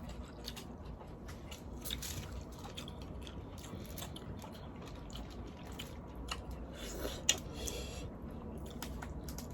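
Eating boiled shellfish: chewing, with scattered small clicks, cracks and wet squishes as the shells are handled and bitten, and one sharper click about seven seconds in.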